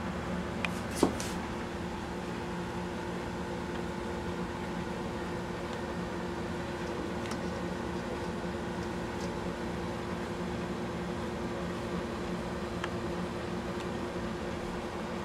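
A steady low mechanical hum with a few constant tones, and a couple of sharp clicks about a second in.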